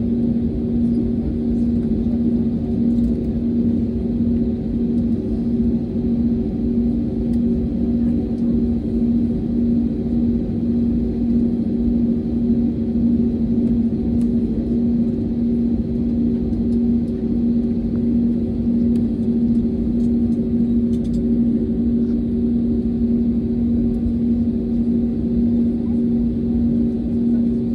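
Steady cabin drone inside an Airbus A320neo on the ground: a low rumble carrying a constant hum.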